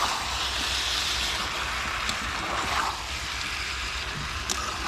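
Chicken sizzling in a pan as it is fried down for chicken kosha: a steady frying hiss.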